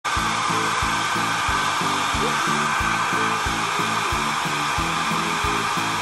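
Handheld hair dryer blowing steadily, a constant rushing hiss, with background music with a steady beat underneath.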